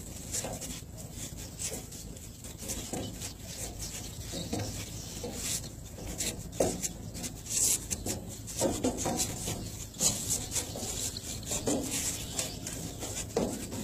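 Irregular scuffs and short sharp sounds from a person shadow boxing, his footwork and moves close to the microphone, over a steady low hum.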